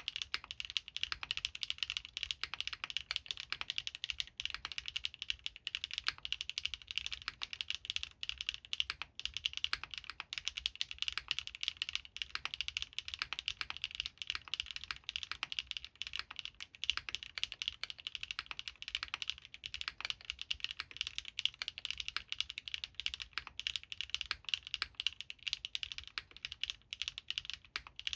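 Continuous fast typing on a Geonworks Frog TKL custom mechanical keyboard with Krytox 205g0-lubed Gateron RAW switches, GMK keycaps and an aluminium plate: a dense, even stream of key clacks.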